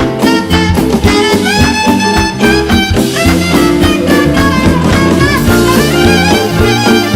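Jazz band playing an instrumental passage with no singing: a melody instrument plays a solo line over a moving bass line and rhythm section.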